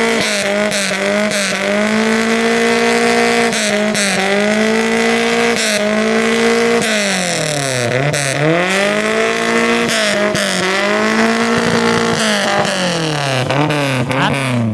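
Car engine held at high revs. Its pitch sags and climbs back several times, with deeper drops in the second half as the throttle is eased and reapplied.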